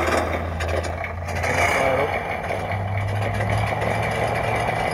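Imex HG-P408 1/10-scale RC Humvee running on its simulated engine sound, a steady low drone. About two seconds in it rises in pitch and gets louder as the truck drives on.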